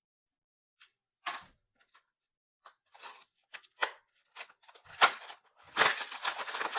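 Blind-box packaging being handled and opened by hand: scattered short crackles, then a continuous crinkling rustle from about six seconds in.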